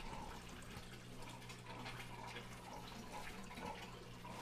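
Faint water trickling and dripping as an aquarium fills, over a low steady hum.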